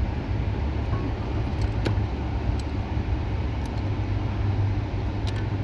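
Steady low hum with a few light, sharp metallic clicks scattered through it as a bearing puller is turned down to draw the worn steering-column bearing out.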